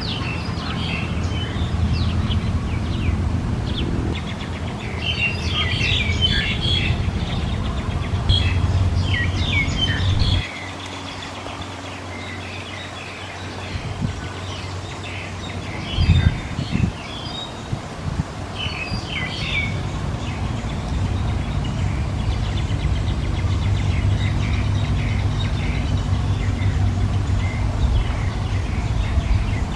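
A bird chirping and calling in short rapid phrases over a steady low background rumble. The calls are busiest in the first two-thirds and grow sparse near the end. The rumble drops away for a few seconds about a third of the way in, and a sharp knock comes about halfway.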